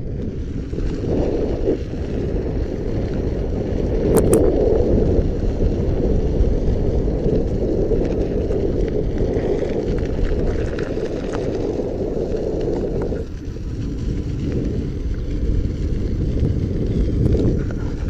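Wind buffeting the microphone while riding an electric unicycle: a steady low rumble with tyre noise underneath, and a single sharp click about four seconds in.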